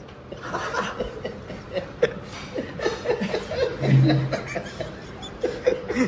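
People chuckling and laughing quietly in short, broken bursts.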